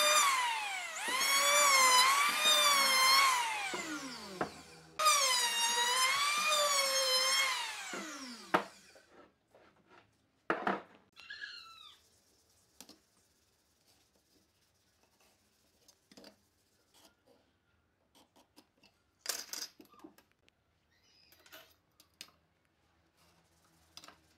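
Handheld electric wood planer running under load, its motor pitch wavering up and down as it cuts. It winds down and stops about four seconds in, starts again at once, and winds down for good about eight seconds in. After that come light taps and scratches of a pencil and steel ruler marking out the wood.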